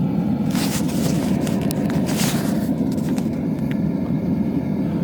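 Steady low roar of a running forge, with two short hisses about half a second and two seconds in, then a few light clicks.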